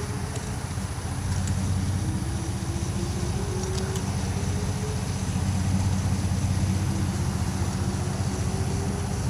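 Whelen WPS-2909 outdoor warning siren sounding its test, a faint wail that rises slowly in pitch, drops back and rises again every three to four seconds. A heavy low rumble runs under it and swells twice.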